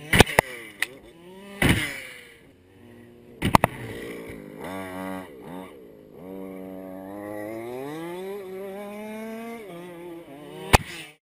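Radio-controlled car's motor running, its pitch rising and falling as it revs, with several sharp knocks: a cluster in the first couple of seconds, more about three and a half seconds in, and one shortly before the end.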